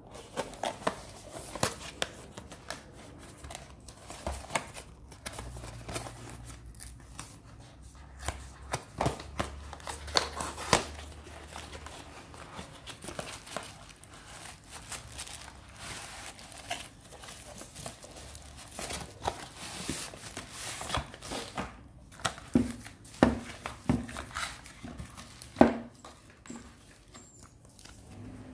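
Cardboard product box being opened and handled: irregular scraping, rustling and sharp clicks of the card flaps and packing, with a few louder knocks in the last third.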